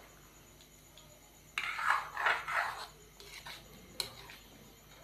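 Wooden spoon stirring thick soup in an aluminium wok, scraping and knocking against the pan: a run of scrapes about a second and a half in, then a few lighter taps and a sharp click about four seconds in.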